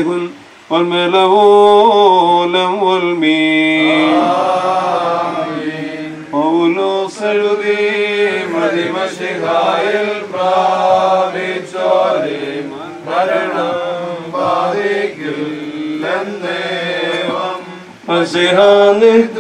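A priest chanting a liturgical funeral hymn in a male voice, in long, slow melodic phrases with held notes and short breaths between them.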